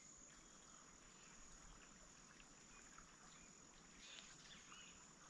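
Near silence: faint outdoor background with a steady high-pitched insect drone.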